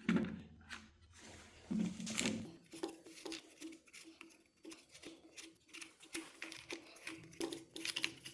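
Scattered light clicks and handling noises of plastic parts as the cover knob on a Duratech 12-volt mini chainsaw is unscrewed by hand.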